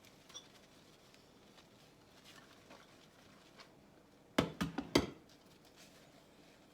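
Kitchen dishes or utensils clattering: a quick cluster of about five sharp knocks a little after halfway, with a few faint small clicks around it.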